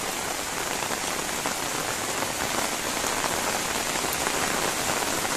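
Steady rain falling on floodwater covering a street.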